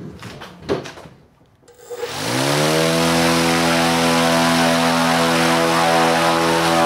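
Propeller on an alternator converted into an electric motor spinning up about two seconds in, rising in pitch, then running steadily at full throttle: a loud steady hum over a rush of air.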